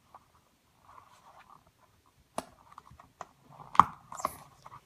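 Small toy package being opened by hand: soft crinkling of packaging with a few sharp clicks and snaps in the second half, the loudest about four seconds in.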